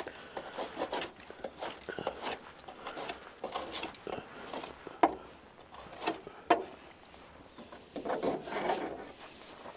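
Metal scraper rasping and scraping built-up creosote off the door-seal area around an outdoor wood boiler's firebox door, in short irregular strokes with small clicks, and two sharper metal knocks a little after halfway.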